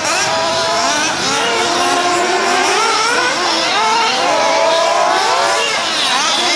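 Several 1:8 scale nitro off-road buggies racing together, their small two-stroke glow engines whining and revving up and down at overlapping pitches, rising and falling as the cars brake and accelerate.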